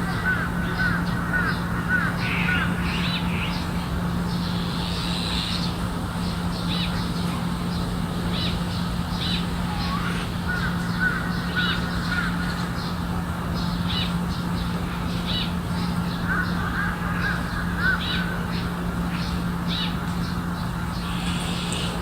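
Harsh, rapid chattering calls from a crow-family bird come in three runs: at the start, about halfway through and near the end. Short high chirps of small birds sound throughout, over a steady low hum and rumble.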